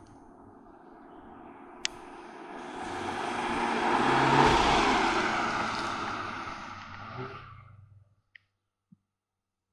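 Hill-climb competition car driving past on the course: its engine sound builds for several seconds, peaks about halfway through and fades away about eight seconds in.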